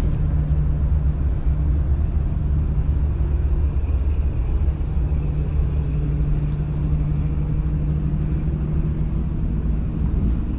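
Steady low engine rumble with a constant hum.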